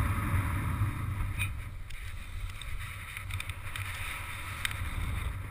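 Wind rushing over the microphone of a paraglider pilot swinging through acro manoeuvres under the wing: a steady low rumble of airflow buffeting.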